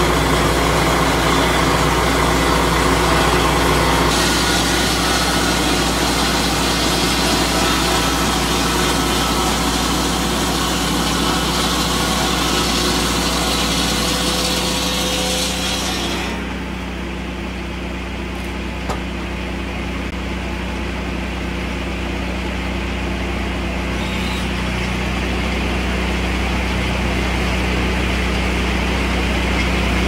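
Lucas swing-blade sawmill's petrol engine running while its circular blade cuts through a log. About halfway the high cutting noise stops abruptly, leaving the engine running steadily.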